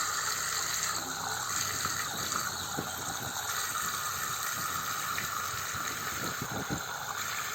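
Water splashing and trickling steadily in a small homemade cement tabletop fountain, kept running by a small electric pump.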